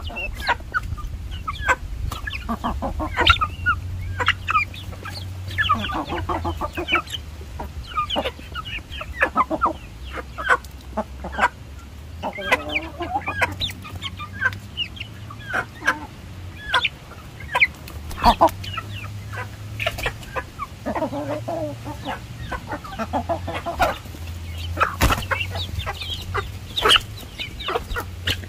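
Chickens, a rooster and hens, clucking in many short, overlapping calls as they are hand-fed cooked rice, with a few sharp clicks standing out.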